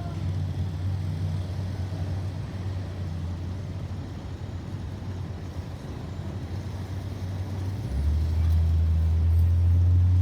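Road traffic: vehicle engines running with a steady low hum. About eight seconds in, a louder engine comes in close.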